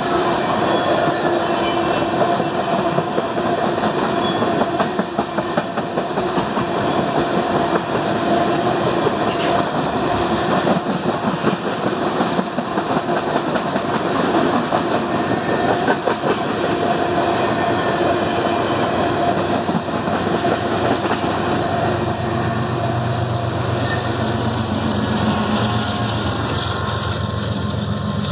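Empty railroad tank cars of a freight train rolling past, the wheels clattering steadily over the rails with a steady whine through most of the passage. From about 21 seconds in, the hum of a diesel locomotive's engine comes in as a locomotive at the tail of the train passes.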